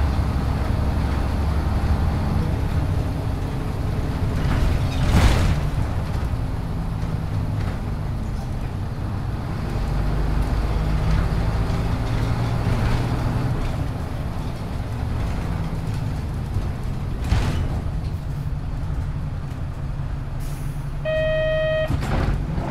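Inside a 1996 Hino Blue Ribbon (KC-HU2MPCA) city bus under way: the diesel engine's drone rises and falls as the bus pulls and slows. Two short hisses of air come about five seconds in and again after seventeen seconds, and a short electronic beep sounds near the end.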